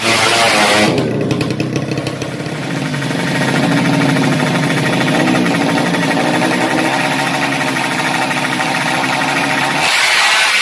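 Several drag-race motorcycle engines at a start line, idling and revving between two loud bursts of hard revving, one in the first second and one near the end.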